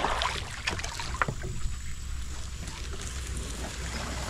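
Sea kayak paddling: the paddle blades dipping and splashing, water dripping off them in several short splashes over a steady wash of moving water.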